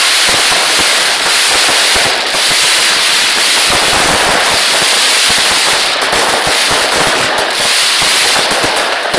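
A loud fireworks barrage: many shells and small charges going off in quick succession, making a dense, unbroken rattle of bangs and crackles.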